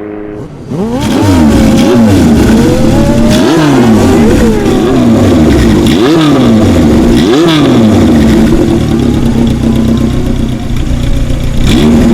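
Honda CB750 Four's air-cooled inline-four engine running loud through a four-into-one exhaust, from about a second in. Its note rises sharply and drops back several times between steadier stretches.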